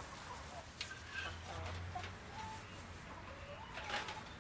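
Domestic hens clucking in short scattered calls, with a sharp click about a second in and another near the end.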